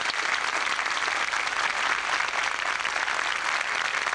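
A large crowd applauding, a dense, steady clapping.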